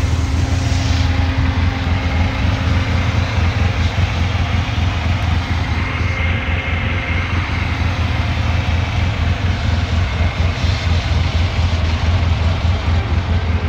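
Off-road vehicle's engine idling, a steady low rumble with an even fast pulse.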